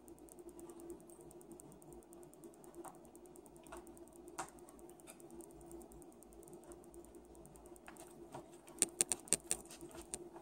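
Metal knife and fork clicking and scraping against plastic takeout containers as the food is cut and eaten. Scattered light clicks are followed by a quick run of sharp clicks near the end.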